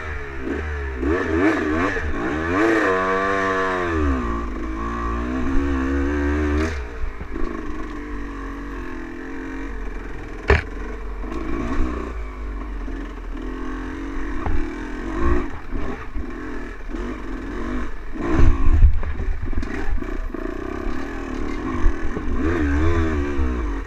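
Dirt bike engine revving up and down while riding a rough trail, with rattling and clattering over the bumps and a sharp knock about ten seconds in.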